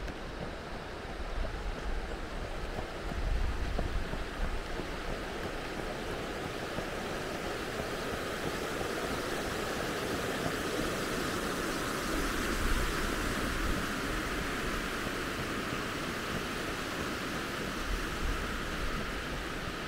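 Steady rushing noise of a shallow river flowing over rocks, a little stronger in the middle. Wind buffets the microphone now and then with low rumbles.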